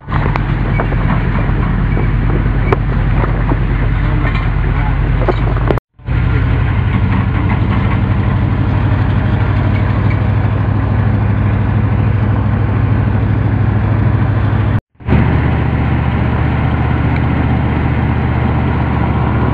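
Steady hum of a vehicle's engine and road noise, heard from a moving vehicle, dropping out abruptly twice.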